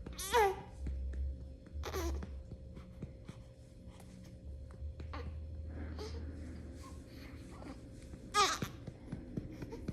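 A newborn baby makes three short, high squeaky cries that fall in pitch, near the start, about two seconds in and near the end, while being burped. Under them runs a steady light patting on the baby's back, about four pats a second.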